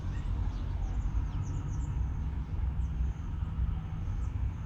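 Steady low rumble of a CSR diesel-electric locomotive heading a container freight train, with small birds chirping over it in short high notes.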